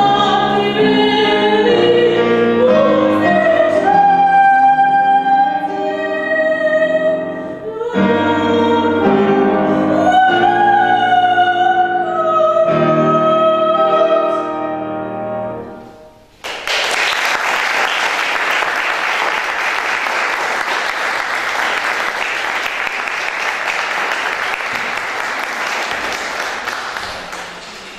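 Female classical solo voice singing with grand piano accompaniment; the piece ends about sixteen seconds in. Audience applause follows for about ten seconds and fades near the end.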